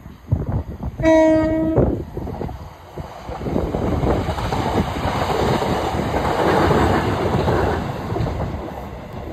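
Southern Class 377 Electrostar electric multiple unit 377311 sounds one short, single-note horn blast about a second in, then runs past close by with the noise of its wheels and running gear on the track, loudest midway and fading toward the end.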